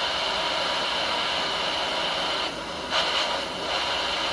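Gas torch flame burning with a steady hiss while heating a steel throttle return spring to reshape it; the hiss dips briefly a little past halfway.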